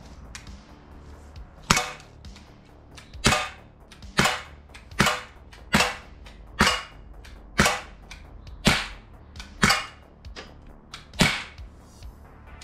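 Sig Sauer P226 CO2 blowback air pistol firing about ten shots at roughly one a second, unevenly spaced. Each shot is a sharp crack, with the CO2-driven slide cycling back.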